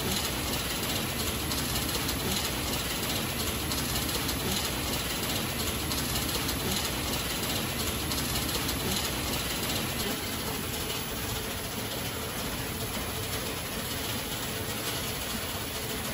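Automatic silk reeling machine running, a steady dense mechanical clatter of its spinning reels and thread guides, slightly quieter after about ten seconds.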